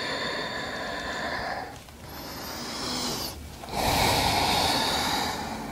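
A woman's slow, deep breathing while holding a yoga pose: three long audible breaths, the last the loudest.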